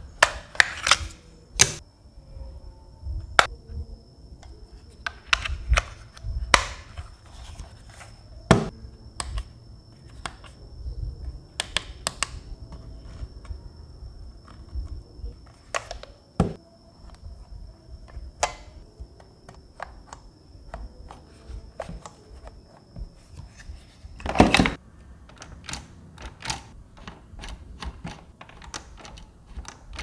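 Handling noise from a plastic pistol-grip RC transmitter being turned over and fiddled with: scattered clicks, taps and light knocks, with a louder knock about three-quarters of the way through. A faint steady high tone runs underneath and stops at that louder knock.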